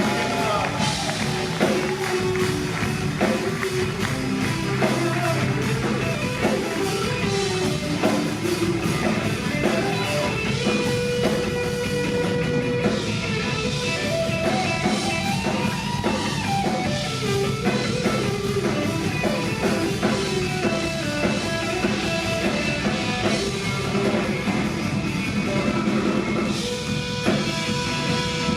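A live rock band playing a song, with guitar and a drum kit.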